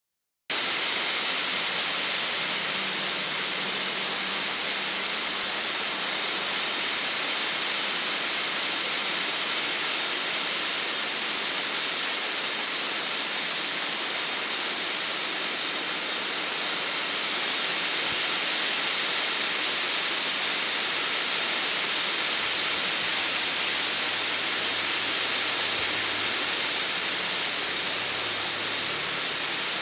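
Rain pouring down steadily onto shrub foliage, an even hiss with no breaks.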